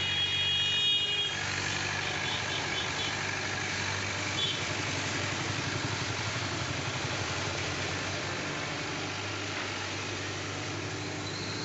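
Tata Hitachi excavator's diesel engine running steadily as the machine slews its upper body and swings its boom. High-pitched beeping sounds over it in the first second and a few short beeps follow over the next few seconds.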